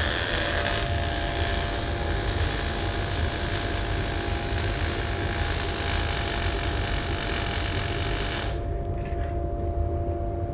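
MIG welder arc running a bead on steel sheet: a steady, dense crackling hiss that starts at once and cuts off about eight and a half seconds in when the trigger is released.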